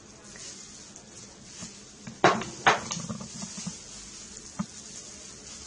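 A spoon clinking against a bowl as ingredients for a sauce are put in and mixed: two sharp clinks a little past two seconds in, and a lighter one later.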